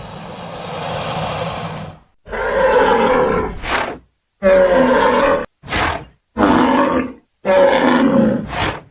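Monster roar sound effects for BIONICLE Rahi beasts: a breathy hiss that swells for about two seconds, then four separate growling roars with clean gaps between them, most ending in a short snarl.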